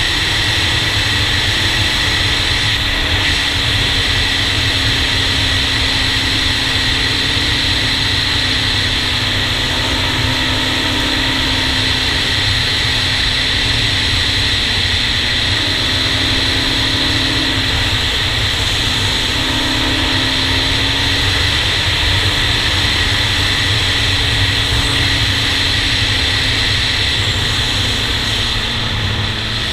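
Honda TRX400EX quad's single-cylinder four-stroke engine running at speed, its pitch rising and falling a few times with the throttle. Heavy wind rumble on the helmet-mounted camera's microphone.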